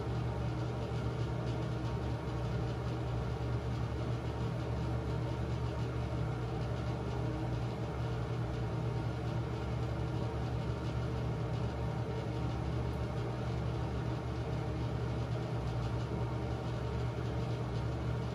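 Steady low mechanical hum of a running motor.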